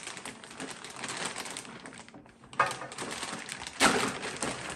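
Clear plastic bag crinkling and rustling as it is handled and pulled off a large toy car, with two louder crackles about two and a half and four seconds in.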